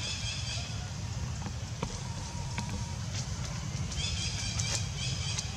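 High-pitched squeaky calls, typical of a baby monkey, come briefly at the start and again near the end, over a steady low rumble of outdoor background noise.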